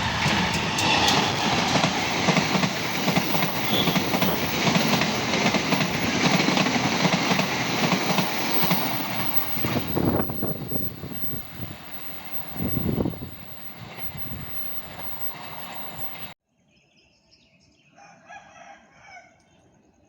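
Train passing close by at speed: a loud, steady rush of wheels on the rails that fades off over the second half and cuts off suddenly about sixteen seconds in.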